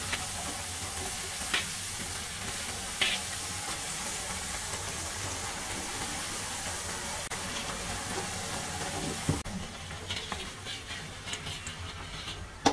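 Pooris deep-frying in hot oil in a kadai: a steady sizzling hiss, with a few sharp clicks of the perforated steel spoon against the pan. About three quarters of the way through the sizzle dies down to scattered ticks as the fried pooris come out of the oil.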